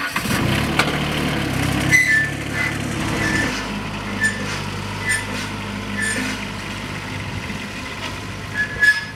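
Zero-turn riding mower's engine running steadily while towing a steel lawn roller, with short high squeaks now and then.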